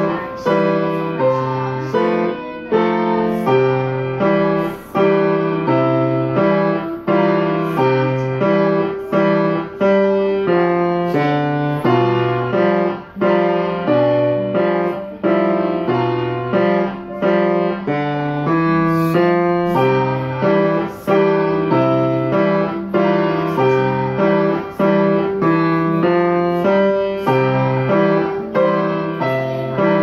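Grand piano being played in a steady rhythm, a repeating low bass pattern under a simple melody.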